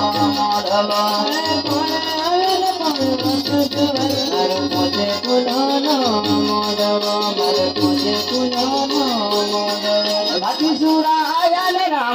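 Folk band music for dancing: a lead melody that slides up and down over a bass line, with a fast, even high percussion beat.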